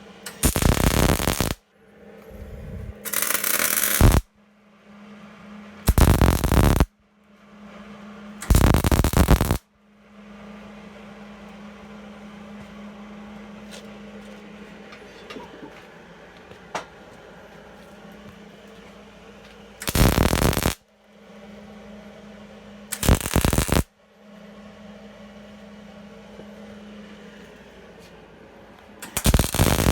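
MIG welder arcing in short tack welds: seven bursts of about a second each, with pauses between them, over a steady low hum.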